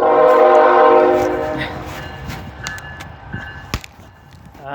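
Freight train's air horn sounding a long chord blast that starts abruptly and fades away over a few seconds, with a second blast starting near the end. A single sharp crack, like a stick snapping, comes between the two blasts.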